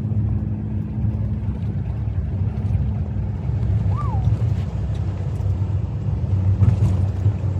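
Steady low engine and road drone of a vehicle being driven, heard from inside the cab. A single short squeak that rises and falls in pitch comes about four seconds in.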